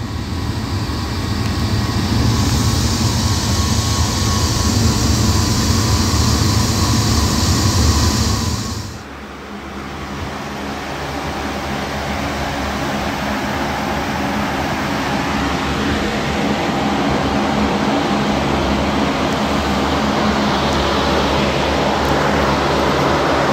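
The firebox of a firewood kiln burning with a loud, steady rushing noise. About nine seconds in, the noise drops suddenly to the steady whoosh and hum of the kiln chamber's large circulation fans blowing air through the stacked logs.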